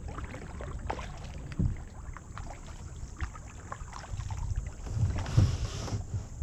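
A kayak being paddled through calm water, with irregular paddle splashes and drips over a low steady rumble. The biggest splash comes about five seconds in.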